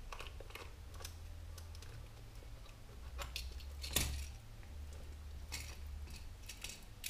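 Light, scattered clicks and taps of D-sub (LPT) cable plugs being unscrewed and pulled from a small breakout box, the sharpest click about four seconds in, over a low steady hum.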